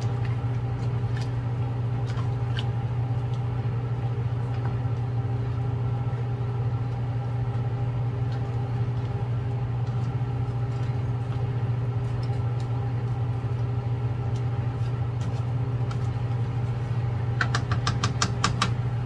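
A steady low machine hum, over which a spatula scrapes and clicks against a non-stick frying pan as chicken pieces are stirred; a quick run of taps comes near the end.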